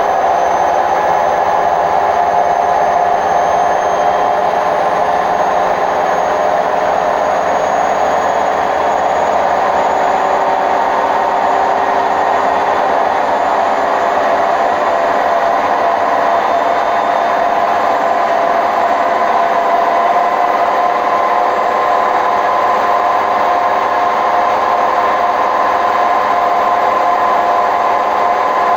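Hotpoint WMF760 washing machine on its spin cycle, the drum spinning at speed with a steady loud rumble and whine. This is the noise of worn drum bearings.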